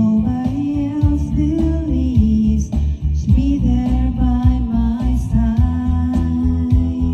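Music: a song with a regular bass beat under a sustained melody line that slides up and down in pitch.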